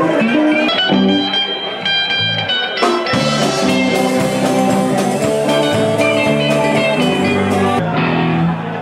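Band music led by guitar, with a fuller, lower part coming in about three seconds in.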